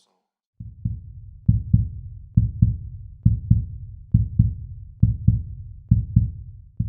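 Heartbeat sound effect: deep paired lub-dub thumps, about one pair a second, eight pairs in all.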